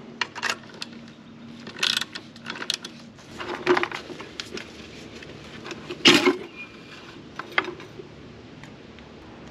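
Scattered small metal clicks and clinks as a nut is wrenched off a fuel level sender and the sender's metal tube is worked apart, with the sharpest knock about six seconds in.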